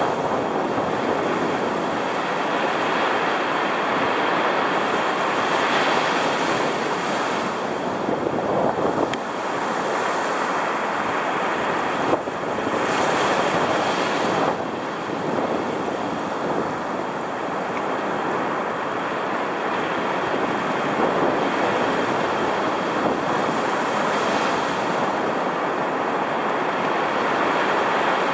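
Storm surf whipped up by a strong cold front, breaking and washing up the beach close to the microphone, with steady wind over it. A larger wave breaks near the middle and brings a brief hissing swell.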